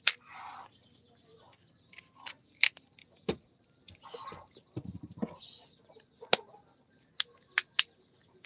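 Kitchen knife peeling a large raw root crop by hand: a string of sharp clicks at irregular intervals as the blade cuts through the peel, with a few short scraping strokes and a dull handling thump about five seconds in.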